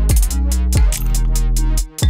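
Background electronic music with a steady drum-machine beat over deep sustained bass; the sound dips briefly near the end.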